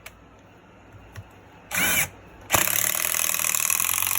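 Cordless impact driver: a short spin-up whine about two seconds in, then from halfway through a loud, steady, rapid hammering rattle as its impact mechanism drives a bolt under load.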